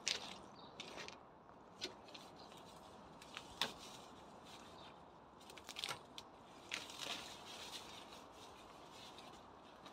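Gloved hands pulling up weeds: leaves rustling and stems snapping and tearing in irregular crackles, the sharpest about three and a half seconds in, with a cluster of snaps around six to seven seconds in.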